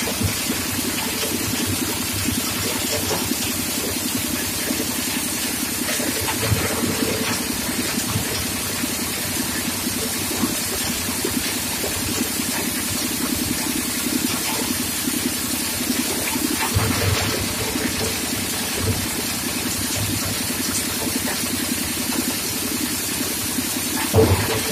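Coal crusher running steadily: a continuous mechanical rushing noise with a fast, even rattle and a louder knock or two near the end.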